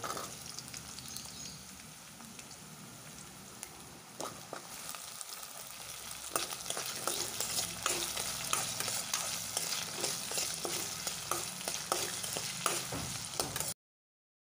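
Diced potatoes and onions sizzling in hot oil in a pan, stirred with a metal spoon that scrapes and clicks against the pan. The sound cuts off abruptly near the end.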